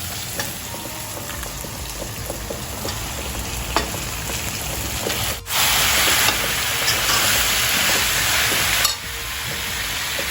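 Chicken pieces sizzling in hot oil with an onion, ginger-garlic and tomato masala in a karhai, stirred with a spatula that clicks and scrapes now and then. The sizzle is louder for about three seconds from the middle.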